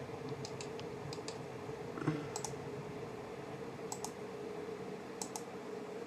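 Scattered light clicks from a Victorinox Swiss Army knife being handled, with one louder knock about two seconds in, over a steady low hum.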